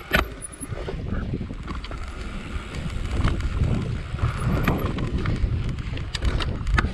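Mountain bike riding over a rough, bumpy grass track: a steady rumble of tyres and wind on the microphone, with scattered rattles and clicks from the bike over the bumps.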